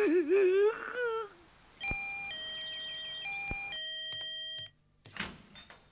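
An electronic doorbell plays a chime melody of steady notes stepping between a few pitches, starting about two seconds in and lasting nearly three seconds. Before it, a wavering voice glides in pitch and trails off.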